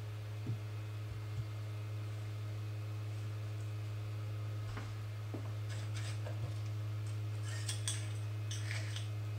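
Steady low electrical hum of bench equipment, with a few light clicks and, from about six seconds in, brief scratchy rustles as the soldering iron, solder wire and small tools are handled.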